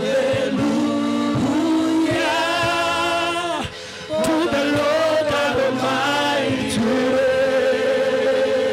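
Church worship singing: voices holding long, wavering notes over steady musical accompaniment, with a brief break a little under four seconds in.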